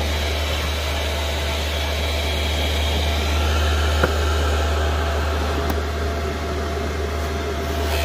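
Diesel air heater running steadily: the even whir of its combustion blower and burner over a strong low hum, with a single click about four seconds in.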